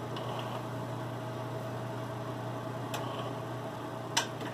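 Steady low electrical hum with a faint higher tone, broken by two small clicks about three and four seconds in.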